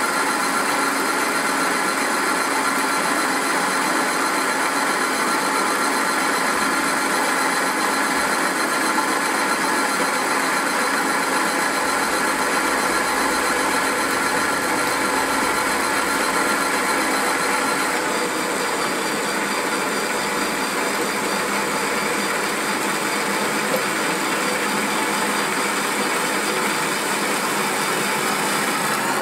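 Cordless drill driving a Malt Muncher grain mill, its rollers crushing malt grain fed from the hopper: a steady motor whine over the dense rattle of grain going through. The tone shifts slightly about eighteen seconds in.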